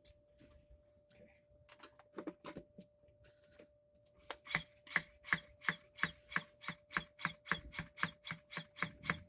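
Small hand siphon pump being worked to draw oil up out of a lawn mower's crankcase: plastic clicks, slow and uneven at first, then a quick even run of about three to four strokes a second from about four seconds in. The pump is drawing nothing and only sucks air.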